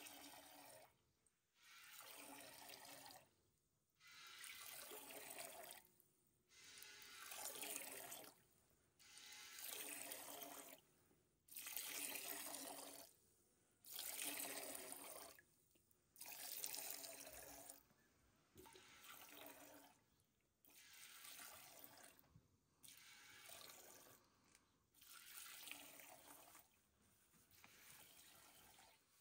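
Faint hissing spurts of milk streams squirting from a cow's teats into a stainless steel pail as it is milked by hand, coming in a steady rhythm about every two seconds and striking the milk already foaming in the pail.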